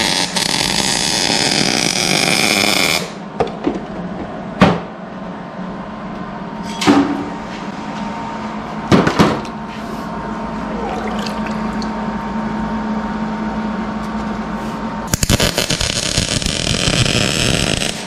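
Wire-feed welder arc crackling steadily for about three seconds, then stopping. In the pause come a few sharp metal clanks over a steady hum, and about fifteen seconds in the arc strikes and crackles again as nuts are welded onto small steel brackets.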